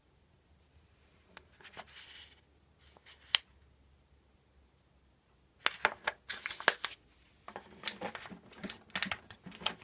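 Tassimo drink pods and their packaging being handled: scattered crinkling rustles and sharp plastic clicks, sparse at first and then busier from about six seconds in.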